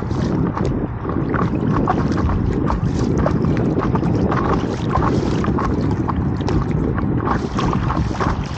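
Wind rumbling on the microphone and water splashing and lapping against the nose of a moving paddle board, a steady rush with many small irregular splashes.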